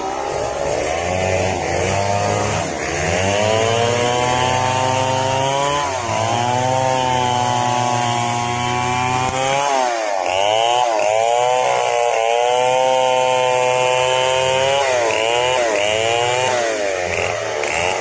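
Large two-stroke 070 chainsaw running at high revs as it rips a mahogany log lengthwise. Its pitch sags under the load of the cut and climbs back, and from about halfway it dips and rises every second or so.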